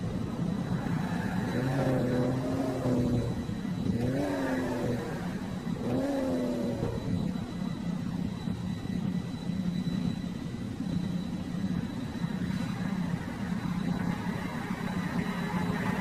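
Car engine running steadily, with three short revs about two seconds apart in the first half.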